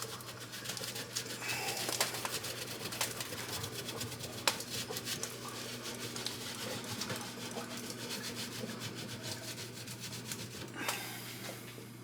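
Scrubbing and scraping grease off the metal inside a kitchen range hood, a continuous scratchy rubbing with scattered light clicks.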